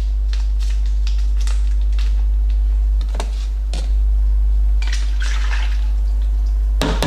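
Rustling and small clicks as a dry yeast sachet is handled and pitched into a plastic fermenter bucket, with a denser rustle a little past the middle and a quick run of clicks near the end. Under it all is a loud, steady low hum.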